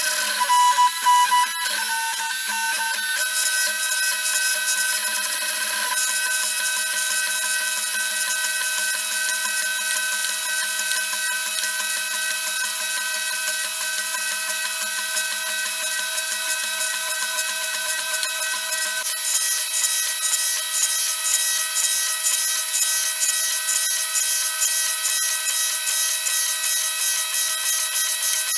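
3D printer running a print: its stepper motors whine in a set of steady tones that change pitch a few times as the print head moves. A fast, even ticking joins in during the second half.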